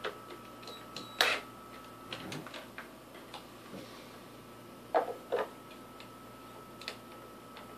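A few scattered light clicks and knocks from hand work on a small wooden box, a part being fitted and screwed on, the loudest about a second in. A faint steady high tone runs underneath.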